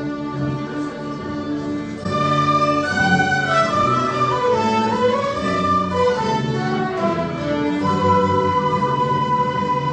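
A mixed-instrument folk ensemble playing a slow traditional Scottish tune, with long held notes and a phrase that slides down and back up in pitch midway through.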